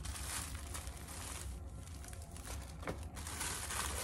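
Plastic packaging crinkling and rustling irregularly as it is handled and opened by hand, over a steady low hum.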